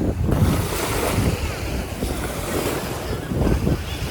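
Surf breaking on a beach, with gusty wind rumbling over the microphone.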